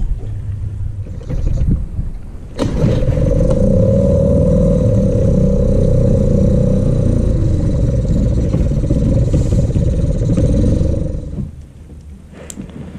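Small boat motor switched on about two and a half seconds in, running loud and steady with a constant hum while the boat is repositioned, then cut off about two seconds before the end.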